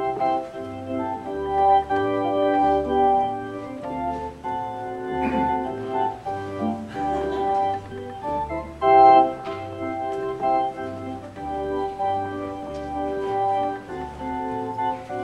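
Organ playing slow held chords over a bass line that steps to a new note about every second.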